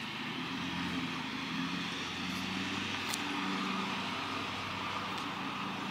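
A steady engine drone in the background, with a couple of faint clicks about three and five seconds in.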